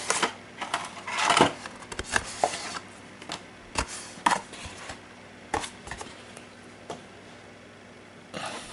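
Cardboard game box and cards being handled: scattered light taps and knocks with a couple of brief rustles, busier in the first few seconds and thinning out toward the end.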